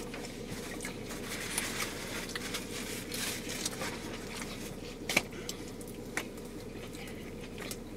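Quiet eating noises: chewing and the soft crackle of burgers and their wrappers being handled, with a few sharp clicks, two of them standing out past the middle.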